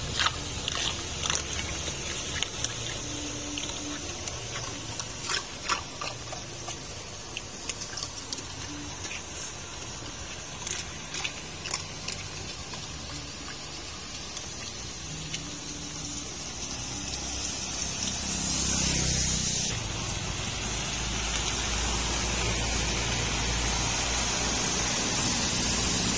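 Muddy rain runoff gushing into a roadside drain grate, with sharp splashes as a hand clears debris from the grate's slots. In the second half the splashing stops and it becomes a steady rush of water with a low rumble.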